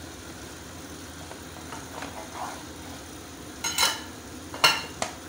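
Kitchen knife cutting through a sponge cake on a wooden board, with a few soft scraping strokes, then two short sharp clatters of the metal knife against a glass dish near the end.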